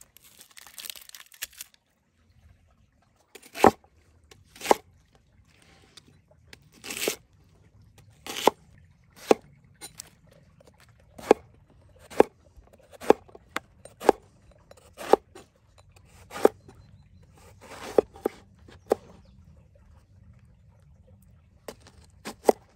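Papery onion skin peeled off with a crackly tearing for the first second or so. Then a large knife slices through vegetables, an eggplant cut into rounds, striking the wooden cutting board with a sharp knock about once a second.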